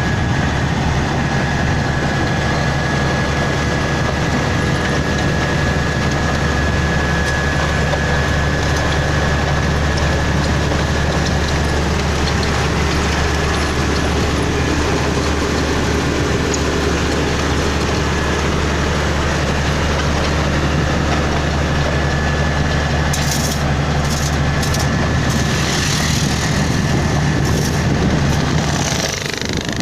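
Komatsu GD555 motor grader's diesel engine running steadily under work, with a thin steady whine above it. Some crackling comes in over the last few seconds.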